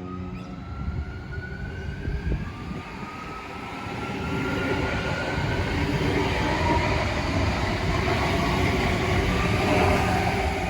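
Adelaide Metro electric multiple-unit train: an electric motor whine rising in pitch as it accelerates, then the rumble of the train getting louder as it draws near and passes.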